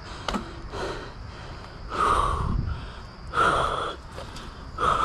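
A person breathing hard, with three loud breaths about a second and a half apart starting about two seconds in.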